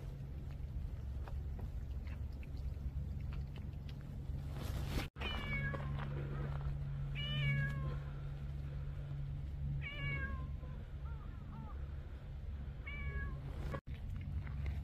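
A cat meowing about four times, each meow falling in pitch, with a few softer short calls between, over a steady low hum.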